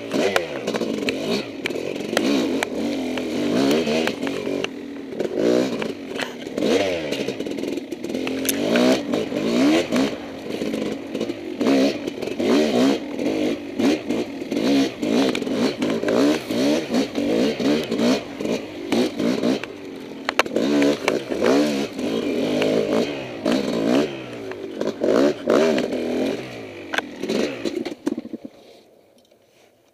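Kawasaki KX250 two-stroke dirt bike engine revving up and down over and over as the throttle is worked, with sharp clicks and clatter over it. Near the end the sound drops away almost to silence for the last second or so.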